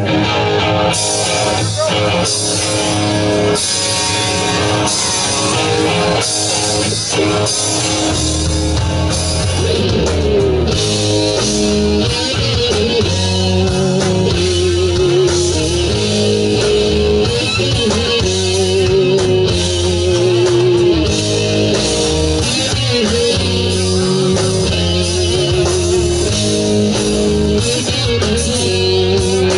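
Live rock band playing an instrumental break: drums, bass and electric guitars in full, with a guitar lead of long, wavering, bent notes through the second half.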